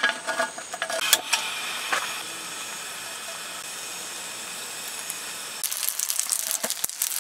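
Meat patties sizzling in a frying pan: a steady hiss that turns into denser crackling about five and a half seconds in, with a sharp knock at the start and another about a second in.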